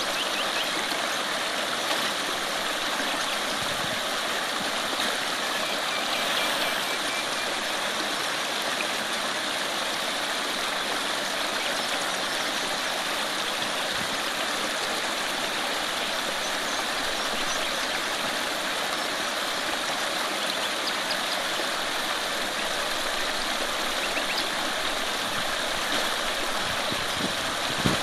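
Shallow creek running over rocks, a steady rush of water close to the microphone. One brief knock near the end.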